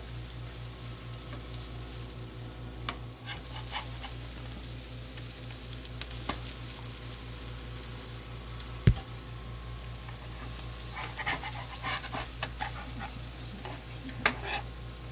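Cornbread flitters frying in lard in a skillet, a steady sizzle, with scattered clicks and scrapes of a metal spatula against the pan as they are turned; one sharp knock stands out about nine seconds in.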